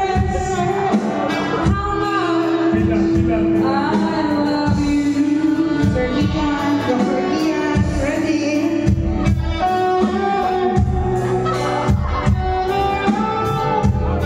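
Live singing into a handheld microphone over an amplified backing track with a steady beat, with some long held notes.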